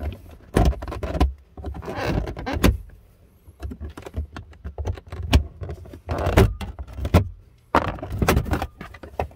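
Plastic trim panel on the side of a car's centre console being pried loose with a plastic trim tool: a string of irregular snaps and clicks as its clips let go, with short bouts of plastic scraping and rattling.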